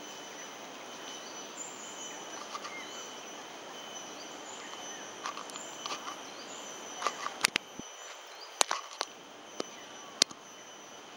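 Outdoor ambience: a steady insect drone with occasional bird chirps. About seven seconds in come half a dozen short, sharp clicks and knocks spread over three seconds.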